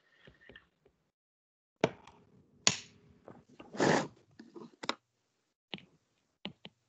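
Scattered clicks and knocks of a computer keyboard being typed on, with a louder short rush of noise about four seconds in.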